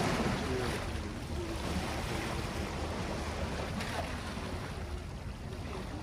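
Small waves lapping and washing against rocks at the water's edge, with wind on the microphone; a slightly fuller wash right at the start, then a steady lapping.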